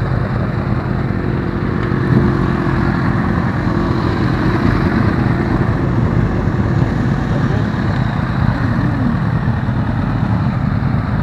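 Several sport motorcycles with their engines running as they ride slowly past in a line.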